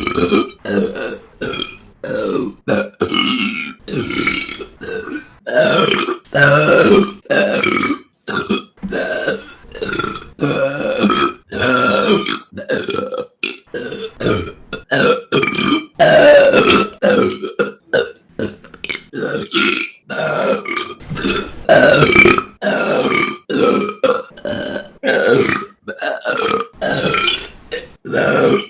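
A woman burping, dozens of short burps in quick succession, each under a second long and starting and stopping abruptly, with brief gaps between them.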